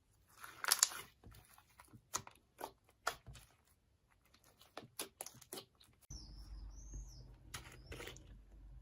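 Slime being worked by hand, giving a string of sharp sticky crackles and pops. About six seconds in a low hum starts, with a brief warbling high squeak.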